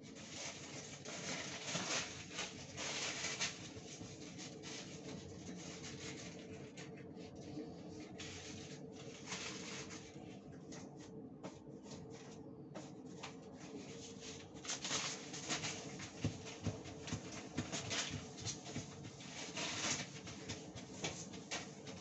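Hand scrubbing and wiping at a gas stove burner: repeated rough rubbing strokes, heaviest about two to three seconds in and again in the second half, over a steady low hum.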